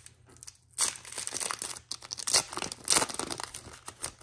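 Foil wrapper of a Pokémon card booster pack being torn open and crinkled, a run of crackling rustles starting about a second in.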